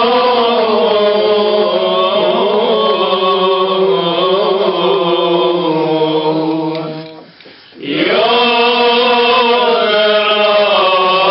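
A Syriac Orthodox cleric chants solo in a man's voice, in long held notes with a wavering, ornamented melody. He breaks off briefly for breath about seven seconds in, then resumes.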